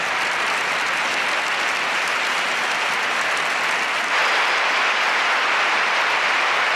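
Football stadium crowd applauding: a dense, steady wash of clapping that gets a little louder about four seconds in.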